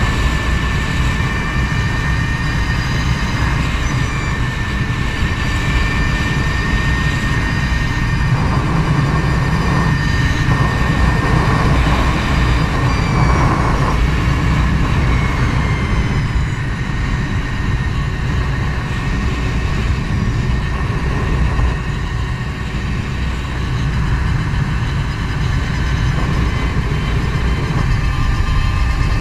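Energica Eva electric motorcycle at speed: heavy wind rush on the microphone, with the electric motor's thin high whine drifting gently up and down as the speed changes.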